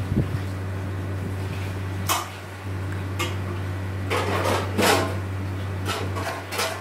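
Hands laying pieces of wet, spice-marinated meat into a pot lined with cloth and banana leaves make a few short rustling handling noises, the loudest about four to five seconds in. Under them runs a steady low hum that drops out briefly about two seconds in.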